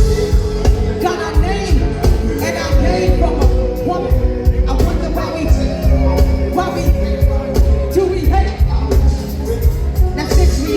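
Live hip hop music with a heavy, steady bass beat and a sung vocal line over it.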